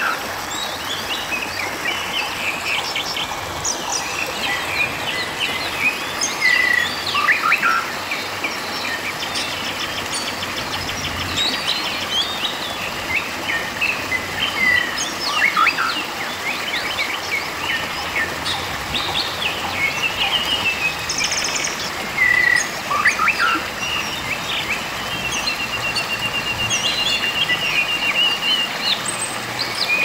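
Shallow river water rushing and gurgling steadily over rocks, with several birds chirping and calling over it in short, quick notes; a fast trill comes in near the end.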